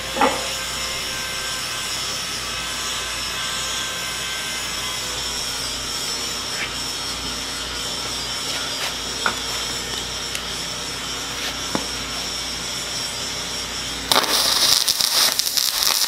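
A steady whirring background hum with a few light knocks, then near the end a MIG welding arc from a Millermatic 255 strikes and runs as a loud crackling hiss.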